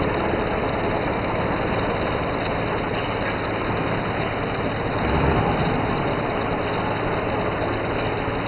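Wood shaving mill running, its electric motor and belt-driven cutter making a steady, dense mechanical noise with a low hum. The noise swells briefly louder about five seconds in.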